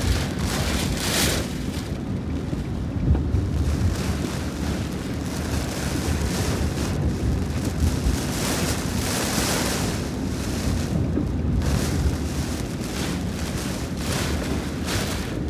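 Storm wind gusting hard, with a constant low rumble of wind buffeting the microphone and gusts of hiss that swell and fade every few seconds.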